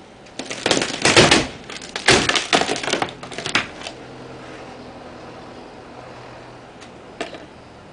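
Wooden paneling cracking and splintering as it is wrenched off the trailer front: a run of loud snapping and crackling for about three seconds, then two light knocks near the end.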